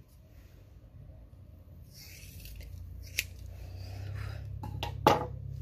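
Scissors snipping through a thick lock of curly hair: several sharp snips, the loudest near the end.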